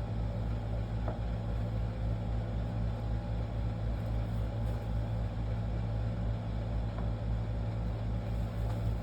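A steady low hum, with a faint click about a second in.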